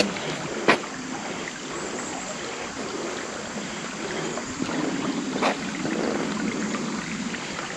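Creek water running steadily over a slate bed, a continuous rushing hiss. Two sharp clicks stand out, one near the start and one about five seconds in.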